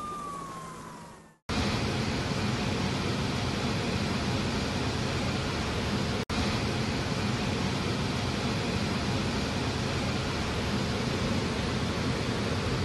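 Steady loud rushing noise of a floodwater torrent, broken by a split-second gap about halfway through. It is preceded by a short tone that slides down in pitch and fades out in the first second or so.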